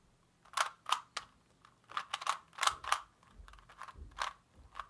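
A Rubik's Cube's plastic layers being turned quickly by hand: a run of sharp clacks in quick clusters, starting about half a second in. These are the cube's final turns, cycling the last-layer edges.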